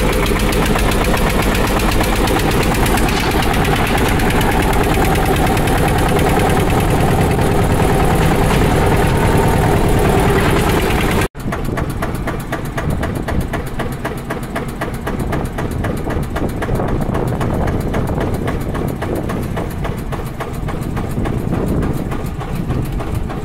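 Tractor diesel engine running, loud and noisy. About halfway through the sound cuts abruptly to a somewhat quieter, steady engine with an even beat.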